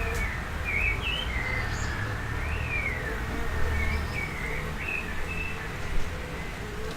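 Summer garden ambience: birds chirping in short calls that rise and fall in pitch, and insects buzzing, over a steady low rumble of wind and distant traffic. A single short, sharp sound comes about six seconds in.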